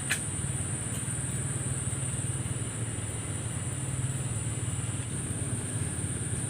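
A small engine running steadily at idle, with a steady high-pitched tone above it.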